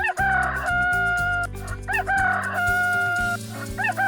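Rooster crowing cock-a-doodle-doo, each crow a short rising-and-falling note and then a long held note; two full crows, with a third starting near the end, over light background music.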